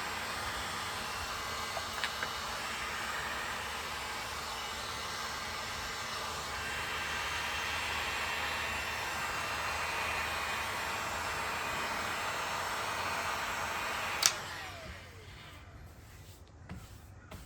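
Heat gun blowing steadily while warming a freshly applied vinyl decal to set its adhesive. About fourteen seconds in it is switched off with a click, and its fan winds down with a falling whine.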